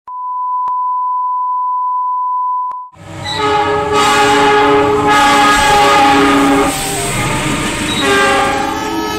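A steady high test tone of the kind played with colour bars lasts about three seconds and cuts off with a click. Then a diesel locomotive's multi-note horn sounds as the train passes, its chord shifting over the rumble of the train.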